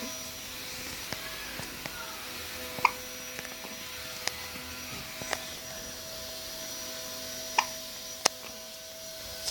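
A days-old baby hiccuping: about five short, sharp hics a second or more apart, two of them with a small squeak of voice. A faint steady hum runs underneath.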